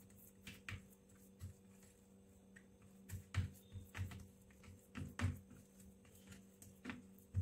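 Steel spoon pressing and smoothing a thick, sticky fudge mixture in a plastic tub, giving faint, irregular soft taps and scrapes. A low steady hum sits underneath.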